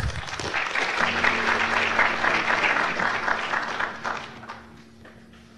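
Audience applauding, dying away about four seconds in.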